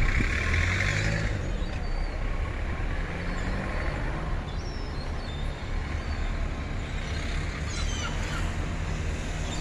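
Boat engine running steadily, a low drone with an even pitch.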